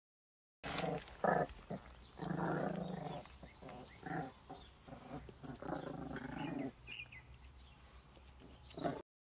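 Two Jindo puppies play-fighting, growling in rough bursts of a second or less, the longest about two seconds in and again near six seconds.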